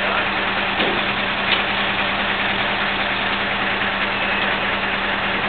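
Fire brigade crane truck's diesel engine running steadily, with an even low hum, while it holds the lifted tree. A couple of faint knocks sound about a second in.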